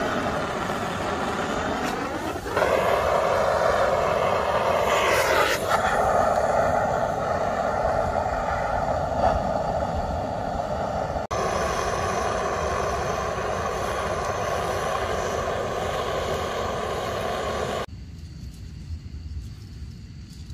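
Handheld gas torch running with a steady jet roar while it is held to firewood to light it. The roar rises in pitch and gets louder about two and a half seconds in, and cuts off suddenly near the end.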